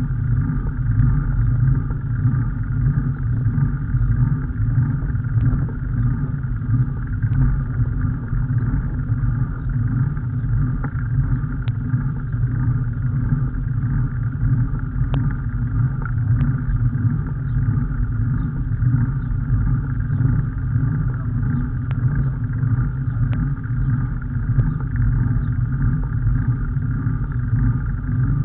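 Steady low rumble of travel noise from a moving vehicle, with wind and road vibration on the microphone and a few faint clicks.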